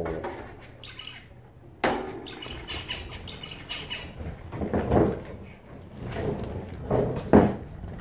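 Zebra finches in wire cages chirping and fluttering, with a sharp knock of the wire cage about two seconds in as its door is handled.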